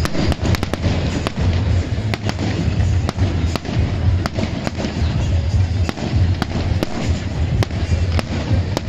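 A fireworks display going off, with sharp cracks and pops in quick succession over a continuous low, rumbling boom.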